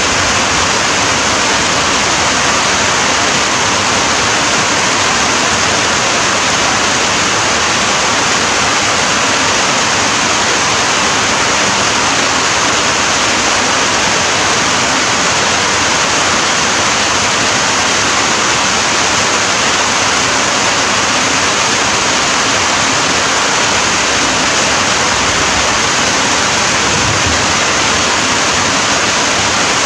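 Steady heavy rain: a dense, even hiss that does not change.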